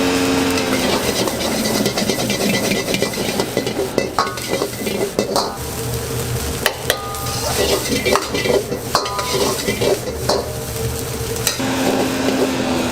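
Egg fried rice being stir-fried, with a metal spatula scraping and clanking against the hot pan over a steady sizzle. There are many sharp scrapes and short metallic rings.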